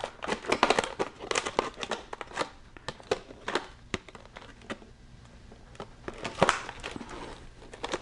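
Compact electrician's scissors snipping through stiff plastic packaging, the plastic crackling and crinkling with each cut in a run of sharp snaps, with a short lull about five seconds in.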